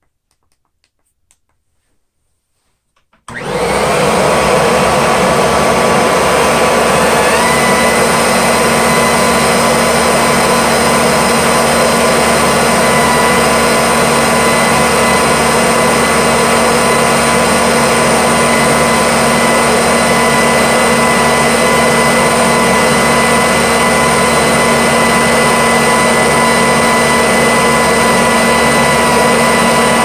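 A few faint clicks, then a Kirby Avalir upright vacuum is switched on a little over three seconds in. It comes up to speed at once and runs steadily at full power with its brush roll spinning, its nozzle sealed on an airflow test box.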